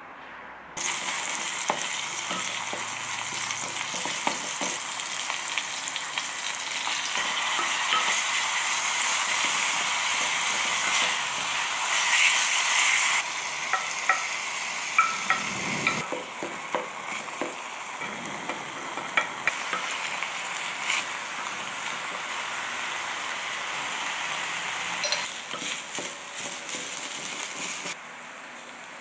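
Minced meat and chopped scallions frying in oil in a stone pot, stirred with a wooden spoon: a steady sizzle that starts suddenly about a second in and cuts off near the end. From about halfway on, sharp clicks of the spoon knocking against the pot come through the sizzle.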